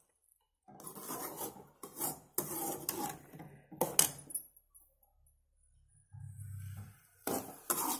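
A steel spoon stirring and scraping thick apple halwa around an aluminium pan in several rough strokes, with a pause in the middle and one more stroke near the end. The halwa is being cooked down until it dries. A short low hum comes about six seconds in.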